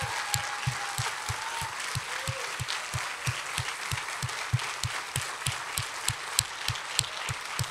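Congregation applauding steadily, a dense patter of many hands clapping. Underneath runs a steady beat of low thumps about three a second from a handheld microphone jolted by the clapping hands that hold it.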